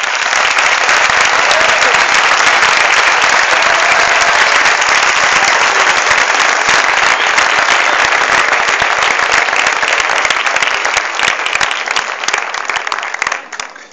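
Audience applauding: dense clapping that starts at once, holds steady and thins out near the end.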